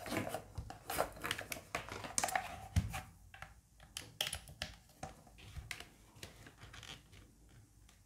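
Hands handling a bare FL-Esports MK870 keyboard kit, its smoke ABS case and steel plate without switches or keycaps, while a USB-C cable is plugged in: a run of small clicks, taps and knocks, with one heavier thump about three seconds in, thinning out in the second half.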